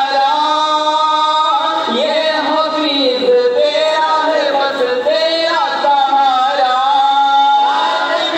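Voices singing a devotional salaam in long held notes that slide from one pitch to the next.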